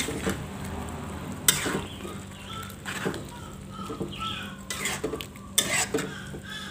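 Metal spatula stirring a pan of simmering coconut-milk stew of banana heart, scraping and clanking against the pan in irregular strokes. The loudest clanks come about one and a half seconds in and near the end.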